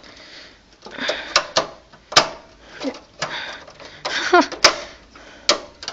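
Thin sheet-metal I/O shield being pressed into a PC case's rear opening: a few sharp metallic clicks and some scraping as it resists snapping into place.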